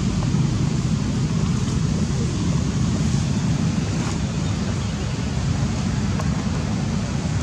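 Steady outdoor background noise: a low rumble with an even hiss over it, no distinct events.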